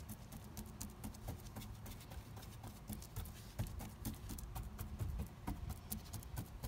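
A paintbrush dabbing polyester resin into glass-fibre matting on a fibreglass panel, working it in so the resin soaks through: a run of quick, irregular taps, several a second.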